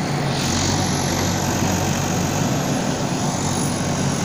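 Bulldozer's diesel engine running steadily. A thin high whine over it rises slightly about a second in and eases back down later.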